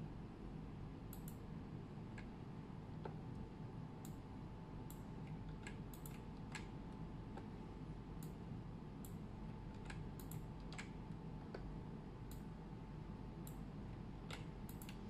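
Scattered clicks of a computer keyboard and mouse, a few at a time at irregular intervals, over a faint steady low hum.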